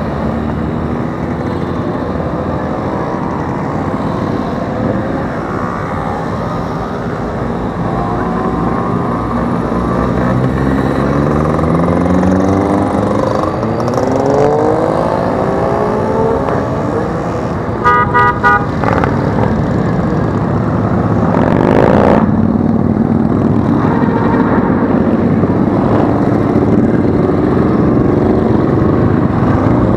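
A procession of motorcycles riding past one after another, their engines rising and falling in pitch as each goes by. A little past halfway a horn toots several times in quick succession.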